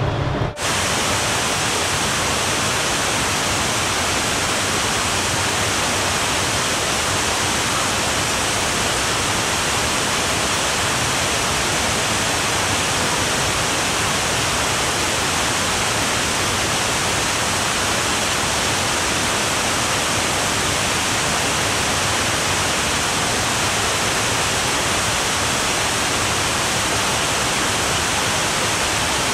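Steady rush of falling river water, an even, unbroken hiss that starts abruptly about half a second in.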